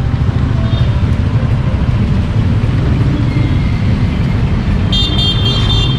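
Road traffic of motorcycles and cars, under a steady low rumble of wind on the camera's microphone as the bicycle rides through. A short high-pitched squeal sounds once near the end.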